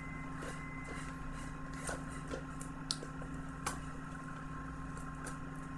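Faint scattered clicks and light rustles of a Blu-ray box set's cardboard and plastic packaging being handled, over a steady low hum.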